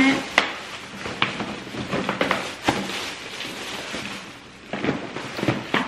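Plastic shopping bags rustling and crinkling while items are pulled out of them, with several short sharp clicks and knocks, including the plastic tube of ornaments being handled.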